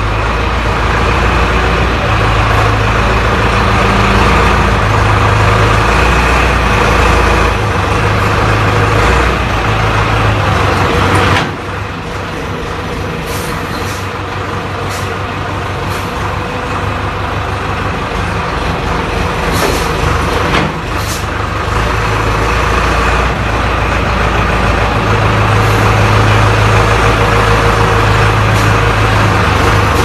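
Diesel engine of an XD926G two-ton wheel loader running under load as it works with its forks. Its speed rises and falls; about eleven seconds in it drops suddenly to a lower, quieter note, and it picks up again a little past the middle. A few short clicks or hisses come while it runs slower.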